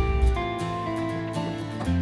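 Background music: held notes changing pitch every half second or so.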